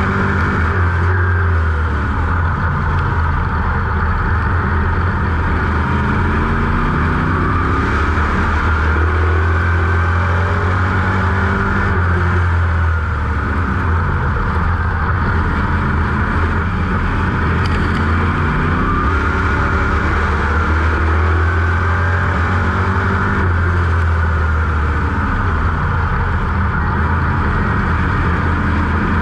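A 602 Sportsman dirt modified's small-block V8 crate engine racing at full load, heard from inside the cockpit. Its pitch rises and falls again and again as the driver accelerates down the straights and lifts into the turns.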